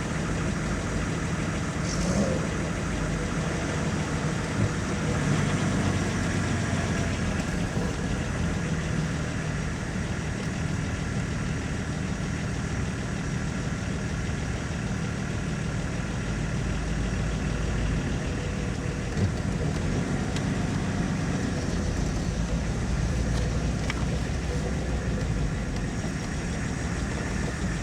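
Car engine running steadily at low revs, a continuous low hum, with a brief high squeak about two seconds in.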